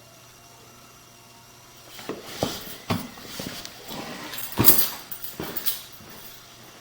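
A faint steady hum, then from about two seconds in an irregular run of knocks and clattering rustle, loudest a little past the middle.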